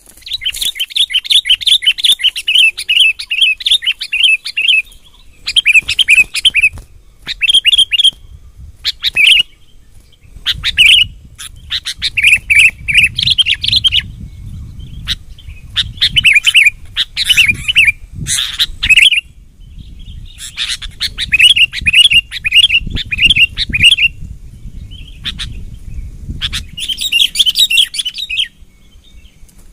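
Sooty-headed bulbuls giving bursts of rapid, chattering calls, one phrase after another with short pauses between, and a low rumble underneath from about a third of the way in.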